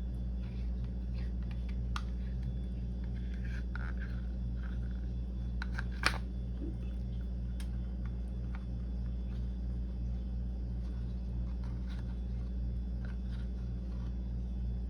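A steady low electrical hum throughout, with a few light clicks and taps of a spoon against the pudding cup and bowl as the chocolate pudding is spooned into the oatmeal; one sharper click about six seconds in.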